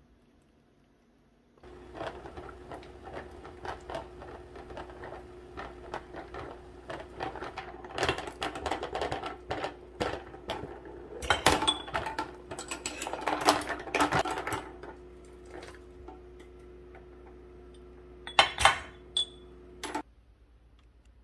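Glass jars clinking and knocking against a stainless steel pot and metal tongs as they are lifted out and set on a drying rack, over a steady hum. The clinks come thick in the middle and again briefly near the end.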